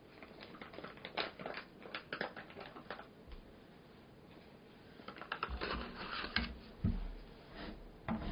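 Handling of eating utensils and dishes: two runs of light, quick clicks and taps, then a couple of dull thumps near the end.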